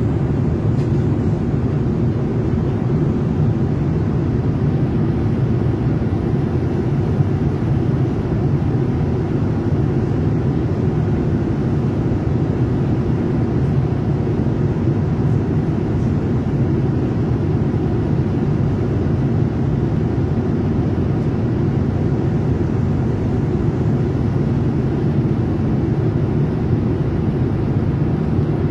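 Steady low rumble of an airliner cabin in flight: engine and airflow noise, unchanging throughout.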